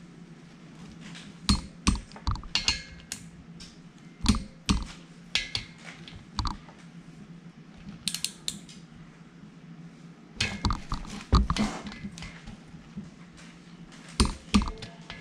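Metal hand tools and engine parts clinking and clattering in irregular bursts on a workbench, over a steady low hum.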